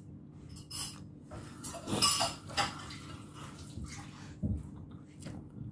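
Metal spoon scraping and clinking against a plate while scooping up squid adobo, in several short strokes with the loudest scrape about two seconds in.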